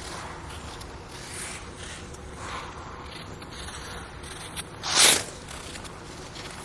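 Ice skate blades gliding on an indoor rink, with soft swishes and one short, loud scrape of the blade about five seconds in, over a steady low room noise.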